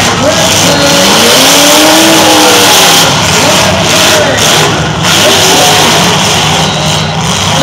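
Engines of several demolition derby cars revving loudly, their pitches rising and falling at once.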